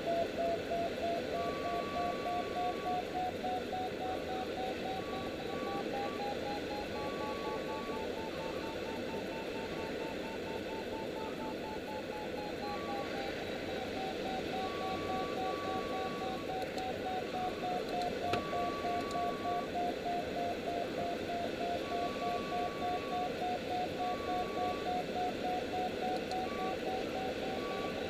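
Glider variometer beeping rapidly, its pitch rising a third of the way in and falling back again, the sign of the glider climbing in lift with the climb rate changing; a second, higher tone sounds in short separate spells. Steady rush of air over the canopy of the 304S Shark's cockpit underneath.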